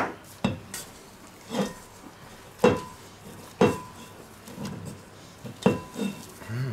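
A stainless steel mixing bowl is knocked down on the worktop about six times, a second or so apart. Each knock is sharp and leaves a brief metallic ring, as sticky cinnamon-star dough is shaken out of it.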